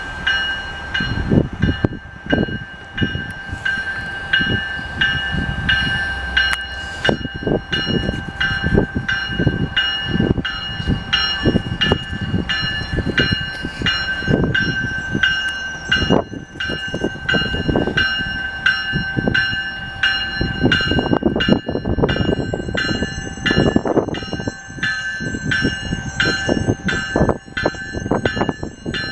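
Railroad grade-crossing bell ringing steadily, about two to three strokes a second, while an MBTA train rumbles past. Gusting wind buffets the microphone. A thin high squeal, likely from the train's wheels, joins in near the end.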